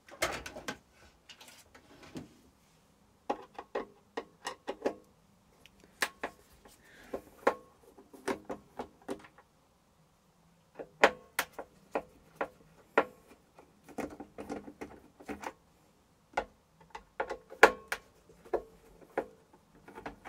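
Irregular sharp clicks and taps of a screwdriver undoing the four screws in the top of a Tower T17079 air fryer, with the screws and plastic parts being handled. There is a short pause about halfway through.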